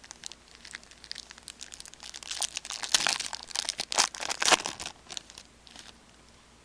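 Foil trading-card pack wrapper crinkling and rustling as it is handled and torn open, a dense run of crackles that is loudest in the middle and dies away near the end.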